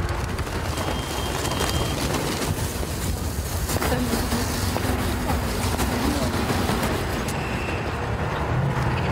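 Steady outdoor city noise: a low traffic rumble mixed with indistinct voices.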